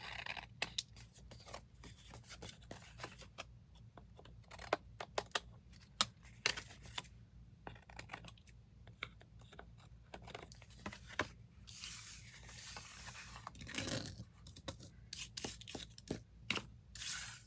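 Scissors trimming the edges of a paper sheet: a run of short, sharp snips, with a couple of longer rustles of paper being handled about twelve seconds in and near the end.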